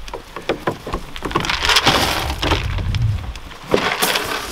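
Hay crackling and rustling in a wooden hay feeder, with scattered knocks and taps on the feeder's wooden rails as goats push in to eat.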